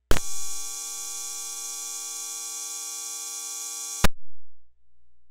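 Breadboarded BOSS DR-110 analog cymbal circuit's noise signal, taken from the high filter (about 7 kHz) at the Q7 VCA input before any envelope. It is a steady, bright hiss laced with several fixed metallic tones from the square-wave oscillators. It starts with a click just after the beginning and cuts off with another click about four seconds later, as the probe wire touches and leaves the junction.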